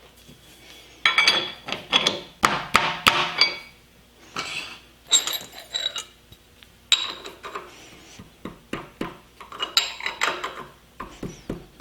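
Steel tools and parts clinking and clanking in several irregular bursts, with short metallic rings, as a cutter is fitted into a metal shaper's tool holder.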